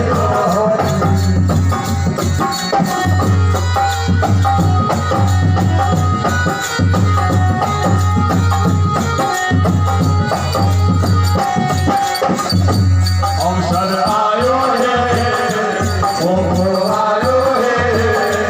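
Devotional satsang music: singing over a steady beat of hand drums and rattling percussion, with a low droning bass. The singing comes forward more strongly in the last few seconds.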